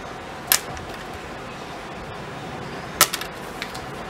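Small items being handled on a table: two sharp clicks, about half a second in and about three seconds in, the second followed by a few lighter clicks, over a steady background hiss.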